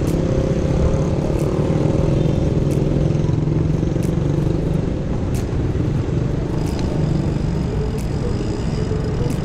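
City road traffic heard from a moving bicycle: a nearby motor vehicle's engine hum, its pitch falling slowly over the first few seconds, over a steady low rumble, with scattered sharp clicks.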